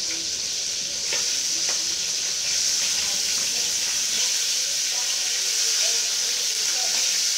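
A metal spoon clinking and scraping on a ceramic plate of rice and fried mackerel, a few sharp clicks about one and two seconds in, over a steady high hiss.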